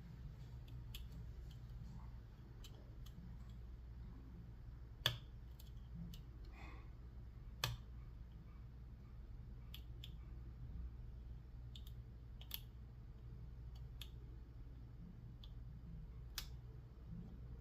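Single-pin picking of an Assa 500 padlock core: a lock pick working the pins, giving scattered small, sharp clicks at uneven intervals, the loudest about five seconds in, over a steady low hum.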